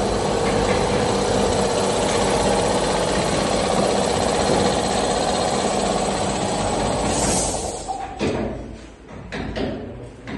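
A machine running steadily, then stopping about eight seconds in, followed by a few light knocks.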